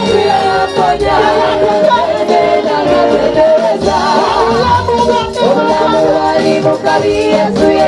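Many voices singing African praise music together, loud and continuous, with several melodic lines and wavering held notes.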